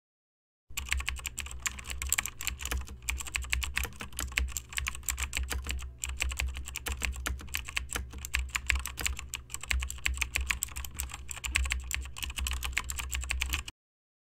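Fast computer-keyboard typing, a dense unbroken run of key clicks over a low steady hum, starting about a second in and cutting off suddenly near the end.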